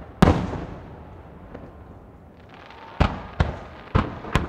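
Aerial firework shells bursting: one loud bang shortly after the start, then four bangs in quick succession near the end, each trailing off in a fading rumble.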